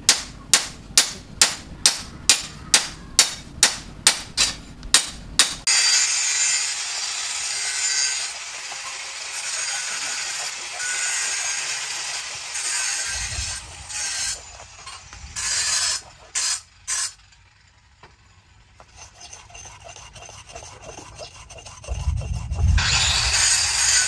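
A run of sharp, evenly spaced knocks, about three a second, stops about five seconds in; then a forged steel cleaver blade is rubbed back and forth on a wet sharpening stone, a grinding scrape with a short break near the end.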